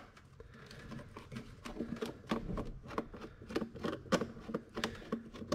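Hands working loose the plastic air intake ducting and its clips in an engine bay: irregular light clicks, taps and knocks of plastic and rubber parts being handled.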